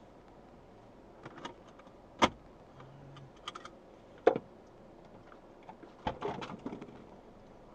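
Handling noises inside a car cabin: scattered sharp clicks and knocks, two of them loud about two and four seconds in, then a quick run of clicks and rustling near the end.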